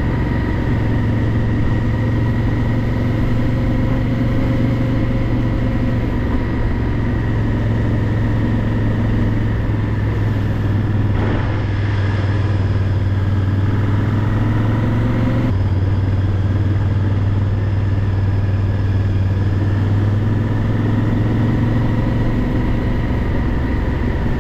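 Honda XL1000V Varadero's V-twin engine running steadily while being ridden, its note dropping abruptly about two-thirds of the way through.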